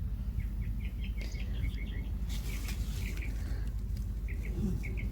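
Small birds chirping: short, high chirps in a quick run during the first two seconds, then a few scattered pairs later, over a steady low rumble.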